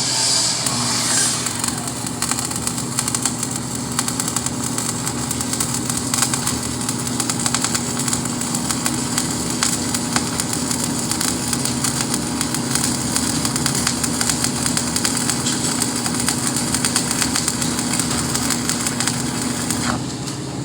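Stick-welding arc crackling and sizzling steadily under a constant hum as a bead is run with a damaged electrode, burning through the metal; the arc cuts off suddenly near the end.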